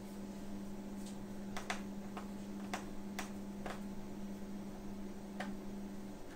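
Faint, sharp clicks of a small screwdriver and tiny screws against a laptop's metal bottom case, about eight of them, irregularly spaced, over a steady low hum that stops near the end.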